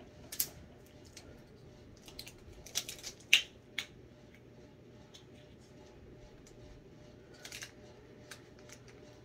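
Sharp clicks and crackles of a small plastic bottle being handled and its cap twisted, clustered in the first four seconds with the loudest snap just past three seconds, and a few more later on.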